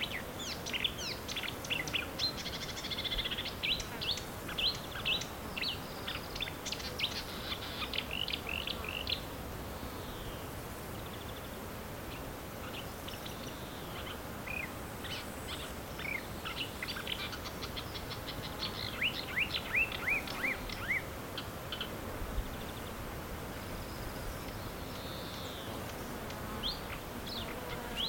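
Marsh warbler singing a rapid, varied run of chirps and whistles. One long phrase lasts about nine seconds, then after a pause a second one lasts about six seconds, and a short burst comes near the end.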